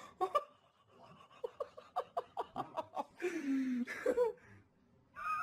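Laughter: a run of short, quick bursts, about six a second, followed by two longer drawn-out vocal sounds.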